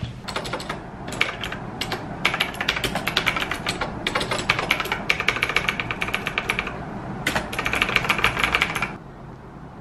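Fast typing on a KnewKey retro typewriter-style mechanical keyboard with round keycaps: rapid clacking keystrokes in runs broken by short pauses, stopping about a second before the end.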